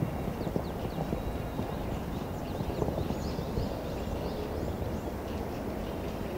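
Hoofbeats of a show-jumping horse cantering, a run of irregular dull thuds over a low rumble.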